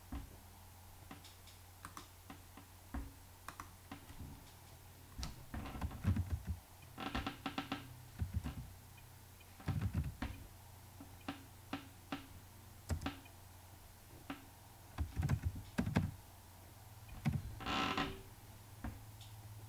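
Computer keyboard keystrokes and mouse clicks: irregular single clicks, with a few quick runs of keystrokes and some duller knocks on the desk. A steady low hum sits underneath.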